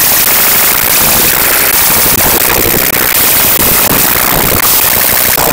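Tap water running hard into a rice cooker's inner pot of glutinous rice in a stainless-steel sink: a loud, dense, crackling splash of water on rice and metal.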